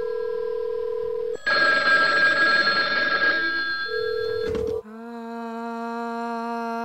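Modified 1960s telephones ringing with electronic tones, with a loud jangling ring for about two seconds. About four and a half seconds in, a handset is lifted with a clunk, and a steady low droning "om" tone takes over from the phone's speaker, the installation's answer to a picked-up phone.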